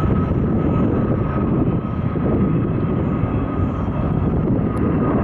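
Avro RJ100's four Lycoming LF507 turbofans at takeoff power during the takeoff roll: a steady jet roar with a thin whine that fades over the first two seconds.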